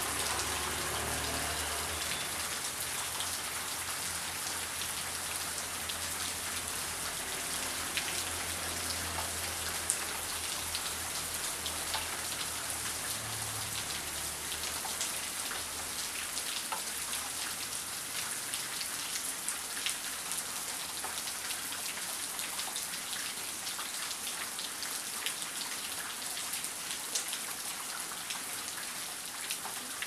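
Heavy rain falling steadily, with scattered sharp ticks of individual drops hitting a surface. A low rumble underneath fades away about halfway through.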